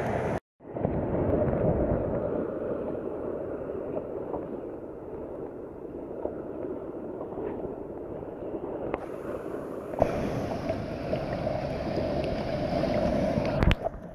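Steady rush of wind on the microphone and sea water sloshing, with a brief dropout about half a second in and abrupt changes in the noise near the end.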